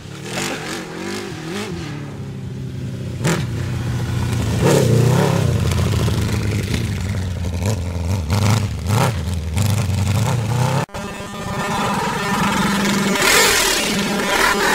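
Honda CBR1000RR inline-four superbike engine in an off-road buggy, running and revving up and down as it drives, with a few sharp knocks. The sound cuts out for an instant about eleven seconds in.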